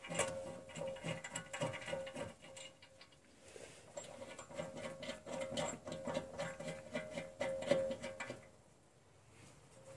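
Irregular clicking, tapping and scraping of metal rear brake parts being handled by hand at the caliper and bracket, stopping about a second and a half before the end.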